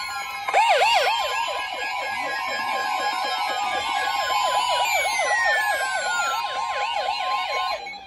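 NOAA Weather Radio's steady 1050 Hz warning alarm tone, joined about half a second in by a fast warbling siren-like alert from the weather radios, about four sweeps a second. Both stop just before the spoken message; the alarm marks the start of a tornado warning.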